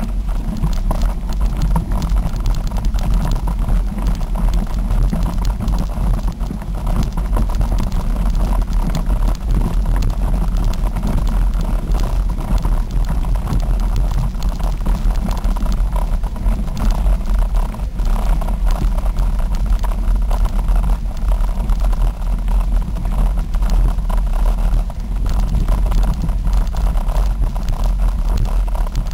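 Steady low rumble of wind buffeting the microphone of a bike-mounted camera in motion, over the noise of tyres rolling and rattling on a gravel trail.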